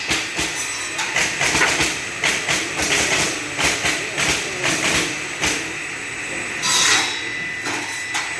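Automatic two-blade wood-cutting machine running, clattering with a rapid, irregular series of knocks and clacks over a steady mechanical hum.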